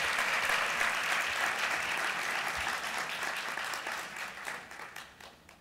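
Audience applauding, the clapping thinning into a few scattered claps and dying away near the end.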